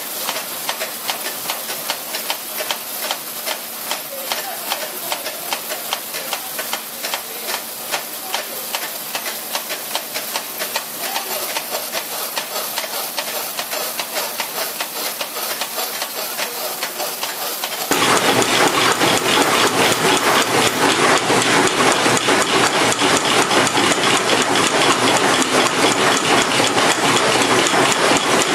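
Wire-fed screw-making machines (cold headers) running, a fast, steady mechanical clatter of repeated strokes. About two-thirds of the way through it becomes louder and fuller, with several flywheel-driven headers going at once.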